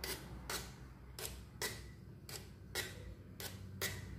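Light, sharp ticking clicks, about two a second at slightly uneven spacing, each with a brief faint ring, over a low steady hum.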